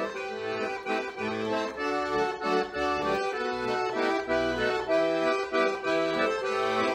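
Instrumental background music: a melody of held notes over a moving bass line.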